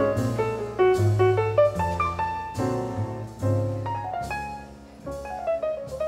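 Jazz piano music: struck chords and melody notes over a low bass line, growing a little softer after about four seconds.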